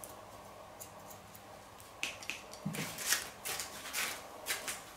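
Hair-cutting scissors snipping through dry hair: a quick run of crisp snips, a few a second, starting about two seconds in.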